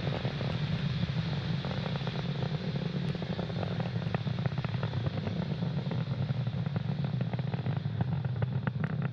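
The nine Merlin engines of a Falcon 9 first stage in ascent, heard from the ground: a steady deep rumble with dense crackling running through it.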